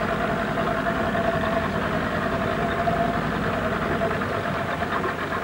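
Outboard motor running steadily at slow trolling speed, an even hum with no change in pitch.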